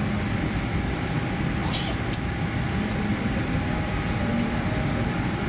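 Steady low rumble and hiss inside the cabin of a Boeing 787-10 airliner on the ground before takeoff, with faint snatches of the safety video's soundtrack and two brief clicks about two seconds in.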